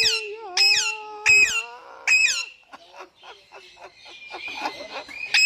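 A parrot squawking in a quick run of four sharp calls, each sliding down in pitch, then soft rapid clicking chatter and another squawk near the end. A steady held tone sounds under the first calls and stops about two seconds in.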